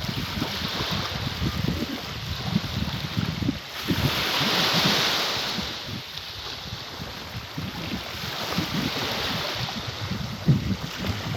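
Wind buffeting the microphone over rushing water, with a broad hiss that swells and fades about four to six seconds in.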